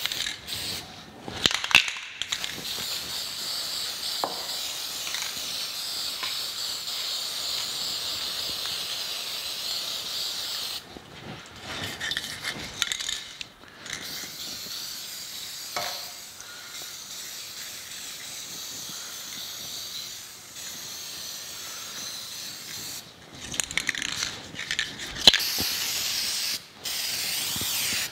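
Rust-Oleum hammered-finish aerosol spray paint can hissing in long, steady spray passes. The spray stops for short breaks between passes, about eleven seconds in and a few times near the end.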